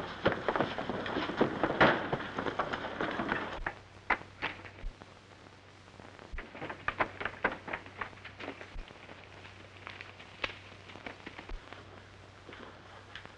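A loud, dense clatter for about four seconds, then quieter, separate clops of horses' hooves as riders walk their horses. Both sit over the hum and crackle of an old film soundtrack.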